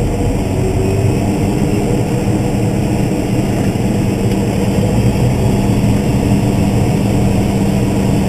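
Case IH 305 Magnum tractor's diesel engine running steadily under load, a constant low drone.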